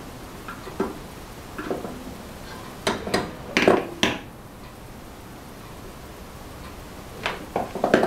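Handling noise: scattered light clicks and taps as battery wires and a plastic connector clamped in metal locking pliers are worked by hand, with a cluster of sharper clicks about three seconds in and a few more near the end.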